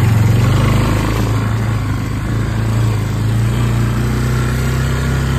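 Yamaha ATV engine running steadily under throttle as the quad pulls out of floodwater. Water splashes and churns around the wheels for the first couple of seconds.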